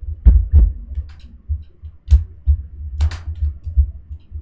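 ASUS ExpertBook laptop's bottom cover being pressed down to snap it back into place. Repeated dull low thumps, with a few sharp clicks near the start, around two seconds in and around three seconds in.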